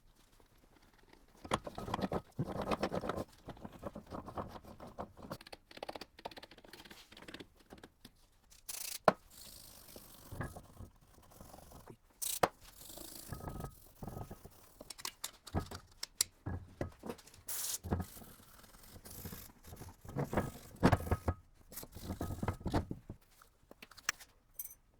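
Metal gearbox parts being handled and fitted during assembly: irregular scraping and rustling with sharp clicks and knocks, the loudest a few single clinks.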